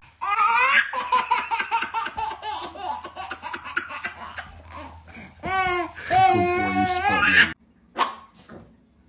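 Someone laughing hard in long, high, wavering peals that cut off suddenly near the end.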